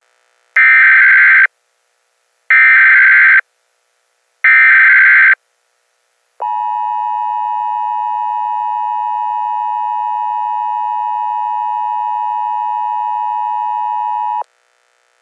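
Emergency Alert System tones for a Required Monthly Test: three short bursts of SAME digital header data, each just under a second and about two seconds apart. About a second later the steady two-tone attention signal follows, held for about eight seconds before it cuts off abruptly. The data bursts encode the alert header that opens an EAS message, and the two-tone signal announces the alert.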